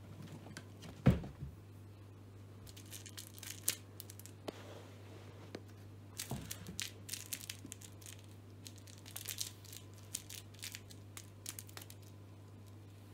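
Cats swatting at a dangled toy mouse: crinkly rustling and light scattered taps, with one louder thump about a second in.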